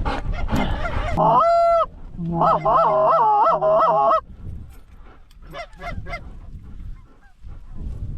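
Canada goose honks: one long honk about a second in, then a quick run of short clucking honks until about four seconds in, followed by fainter, scattered honks.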